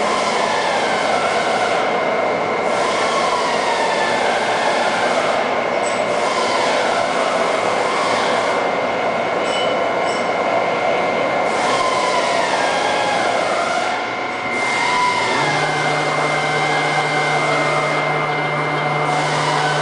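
Cincinnati Gilbert Model J horizontal boring mill running under power as its headstock traverses up the column: a steady mechanical whine and rumble, with drive whines sliding up and down in pitch over a constant high tone. A low steady hum joins about three-quarters of the way through.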